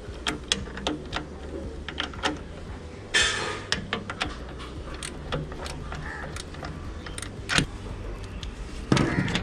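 Irregular metallic clicks and clinks of a spanner and bolts working on a lathe carriage as its retainer is tightened, with a short scraping rush about three seconds in and another near the end.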